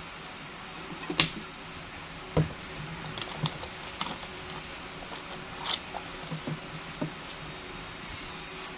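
A person eating rice and chicken thigh: a series of short, sharp clicks and smacks from chewing and utensils at uneven intervals over a steady background hiss. The loudest come about a second in and again near two and a half seconds.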